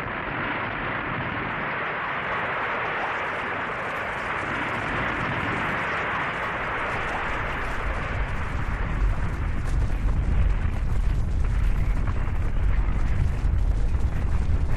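Snow and rock avalanche: a steady rushing hiss, with a deep rumble building underneath from about halfway and growing louder toward the end.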